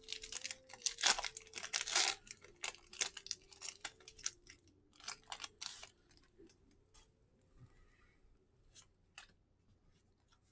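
Foil wrapper of a Pokémon card booster pack being torn open and crinkled by hand: dense tearing and rustling for about the first six seconds, then only scattered light crackles and clicks.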